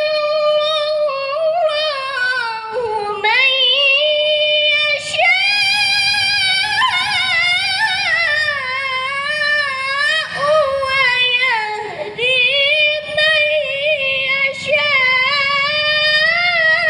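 A woman's high voice in melodic Quran recitation (tilawah), one long drawn-out melisma whose pitch wavers and glides in ornaments, broken by a few short pauses for breath.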